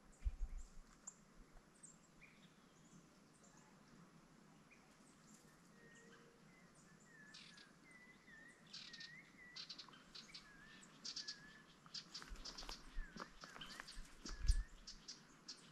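Faint outdoor scrubland sound: small birds giving short repeated chirps in the middle, and a rustling, crackling brush of dry grass and twigs that grows busier in the second half, with a couple of low bumps near the end.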